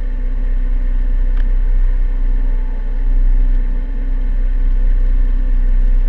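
A sailboat's engine running steadily while the boat motors along, a constant low rumble with a steady hum over it.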